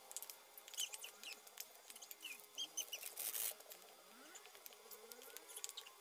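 Hands squeezing and kneading a doughy banana-and-rice-flour bait in a plastic basin: soft squishing with quick clicks of fingers against the bowl, and a brief louder rustle about halfway through. Faint bird chirps sound in the background.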